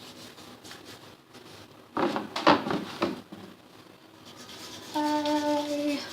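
Slime being worked and tapped with a stick: a second or so of wet, crackling squelches about two seconds in. Near the end comes a steady, horn-like pitched tone lasting about a second.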